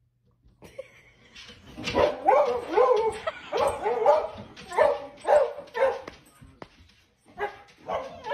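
A dog barking and yipping excitedly in a rapid run of short calls, about two a second, starting about two seconds in, with a brief pause before a few more near the end.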